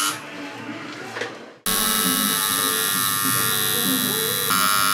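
Electric tattoo machine buzzing steadily. The buzz falls away briefly at the start and cuts back in abruptly about a second and a half in.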